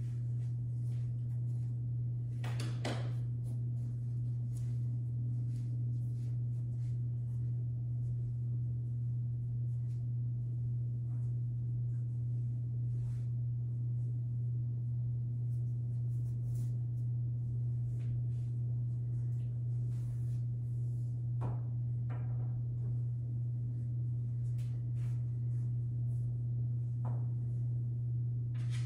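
A steady low hum with a few faint knocks and clicks from someone moving about and handling a pool cue at a pool table.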